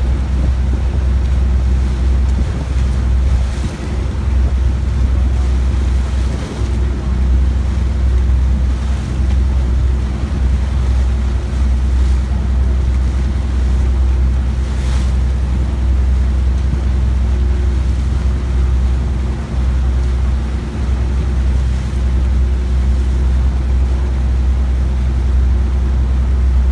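A boat's engine running steadily under way, a deep constant rumble, with wind buffeting the microphone and water washing past the hull.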